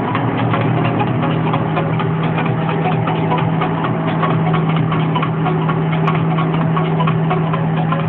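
John Deere 6000-series tractor's six-cylinder diesel engine running steadily, heard from inside the cab, with a constant low hum and a fast, even clatter.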